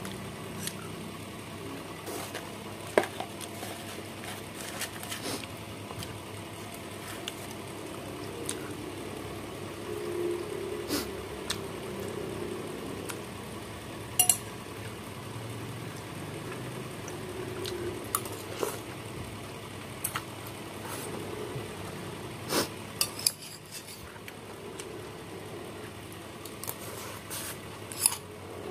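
Metal spoon clinking and scraping against a bowl while eating soup: scattered sharp clinks a few seconds apart, the loudest about three seconds in, around fourteen seconds, and twice near twenty-three seconds.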